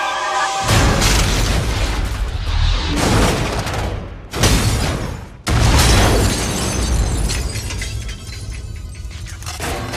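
Dramatic film music mixed with loud booming and crashing sound effects, with several sudden heavy hits and a deep rumble under them.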